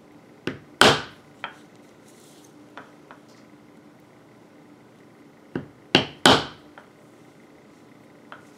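Metal leather stamping tool struck with a mallet on tooling leather laid on a granite slab. There are two groups of blows, about a second in and about six seconds in, each a light tap followed by one or two sharp strikes, with a few faint taps in between.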